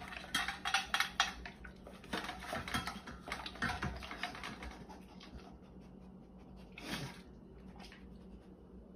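Dog eating from a stainless steel bowl: a quick run of crunches and clinks against the metal bowl that thins out and stops about five seconds in.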